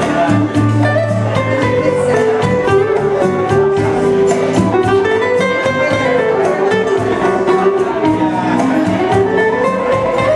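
Live instrumental music: a nylon-string classical guitar plucked with the fingers, with electronic keyboard accompaniment holding low bass notes under a flowing melody.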